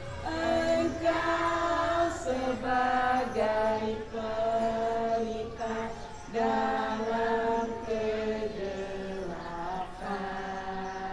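A large group of schoolchildren singing a song together in unison, in long held notes that step from pitch to pitch.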